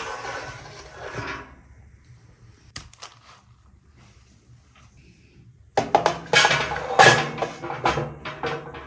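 Kitchen handling sounds: a brief rustling scrape, a few light clicks, then from about six seconds in a busy run of clattering knocks and clinks, like dishes and utensils being handled.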